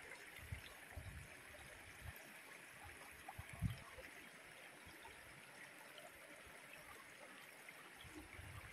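Faint steady rush of a shallow stream running over rock, with a few soft low thumps, the clearest about three and a half seconds in.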